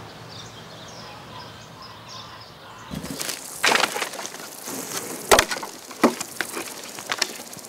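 Dry branches and sticks being thrown down onto a woodpile, a series of sharp wooden knocks and cracks starting about three seconds in.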